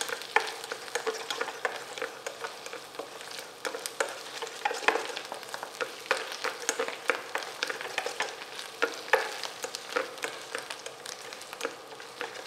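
Sliced button mushrooms and onions sizzling in butter in a stainless steel sauté pan, stirred with a spatula that clicks and scrapes against the pan many times.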